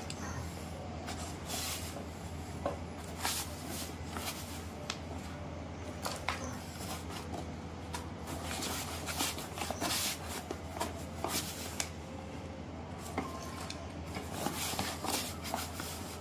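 Hands digging and scraping potting soil out from the sides of a plastic grow bag, with scattered rustles and crackles of the bag and of soil being dropped into a plastic tub. A steady low hum runs underneath.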